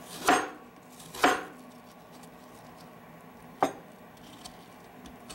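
Kitchen knife cutting through apple pieces and striking the cutting board: three sharp chops, the first two about a second apart and the third some two seconds later.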